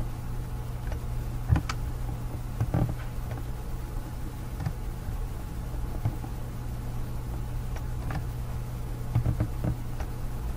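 Steady low electrical hum of a computer recording setup, with a few sharp, scattered computer-mouse clicks spaced a second or more apart.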